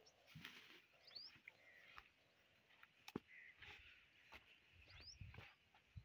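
Near silence, broken by scattered soft knocks and thumps and, twice, a short rising bird chirp.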